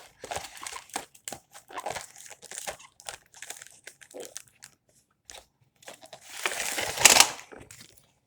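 Toy train box packaging being handled and opened by hand: irregular crinkling and scraping rustles, with a longer, louder burst of rustling about six and a half seconds in.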